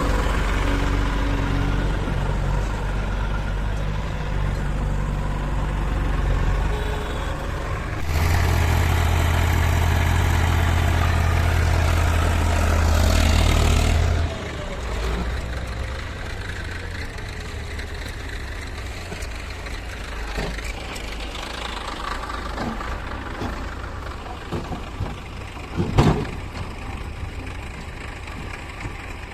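Heavy diesel machinery engine running steadily, much louder for about six seconds a third of the way in, then dropping back to a quieter idle. A single sharp knock comes near the end.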